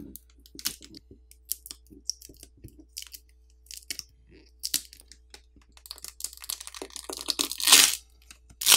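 Smartphone battery being peeled off its adhesive with a pull tab: scattered small crackles and clicks, then a longer crackling tear from about six and a half seconds in that is loudest near the end.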